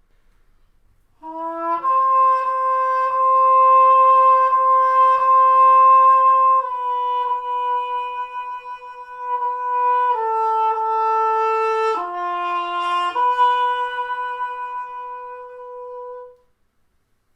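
Trumpet played with a cup mute, giving a slow phrase of long held notes. After a short pickup it holds one note, steps down through a few lower notes, returns to the first note and holds it before stopping about a second before the end.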